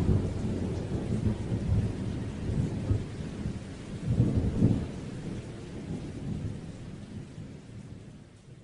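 Rolling thunder over a steady hiss of rain, with a louder rumble about four seconds in, fading out near the end.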